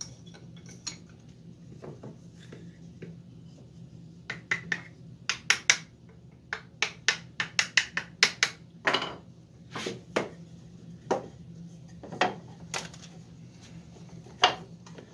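Small hammer tapping the cast-steel iron and wedge of a wooden scrub plane to set the blade. A run of sharp taps comes, most of them quickly between about four and nine seconds in, then a few spaced out.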